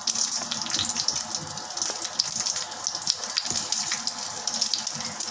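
Mustard seeds, cumin and dried red chillies sizzling in hot oil for a tempering. Many small crackles and pops come through a steady hiss as the mustard seeds splutter.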